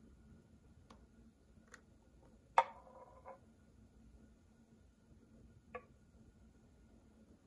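Faint clinks and taps of a stainless-steel milk pitcher and a ceramic cup while steamed milk is poured for latte art. One sharper clink with a short ring comes about two and a half seconds in, and a softer tap near the end, over a faint steady hum.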